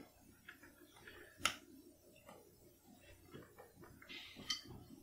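Faint clicks and light taps as a tin can is handled on a table, one sharper click about a second and a half in, with a short breathy hiss near the end.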